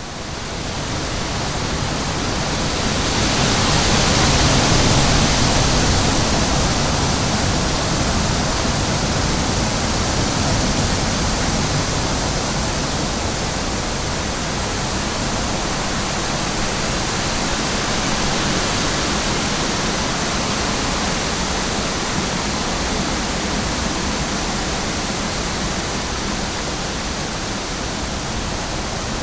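Steady, even rushing noise of a nature ambience, fading in at the start and swelling a few seconds in before holding level.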